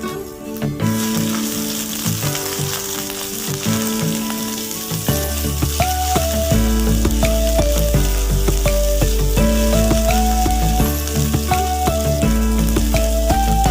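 Food sizzling as it fries in hot oil in a pan, a steady hiss. Background music with a melody plays over it, and a bass line comes in about five seconds in.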